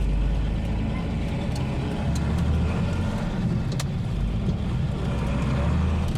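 Unimog truck's diesel engine running steadily while driving, with a low hum and a few sharp rattles or knocks.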